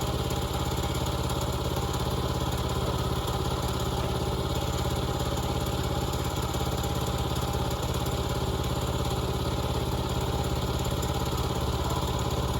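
Portable sawmill's small gas engine running steadily at an even speed.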